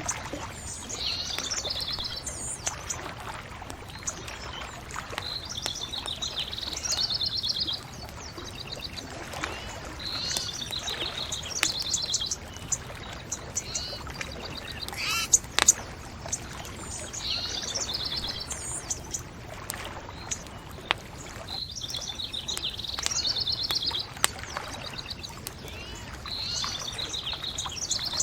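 Songbirds singing short, high trilled phrases every few seconds, over a steady low hiss, with a few sharp pops from a crackling bonfire, the loudest about fifteen seconds in.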